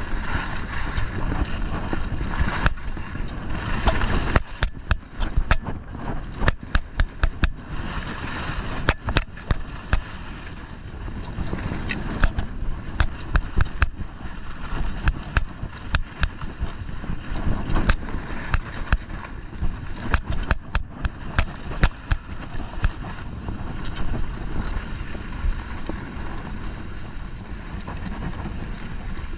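Wind rushing over the microphone and skis sliding over packed snow during a downhill run, with many sharp clicks and ticks through the middle stretch.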